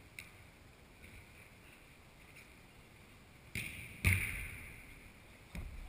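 Three sharp thuds of a football in play, echoing around a large indoor hall. The loudest comes about four seconds in.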